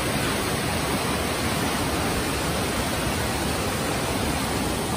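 Steady, even rushing of falling water.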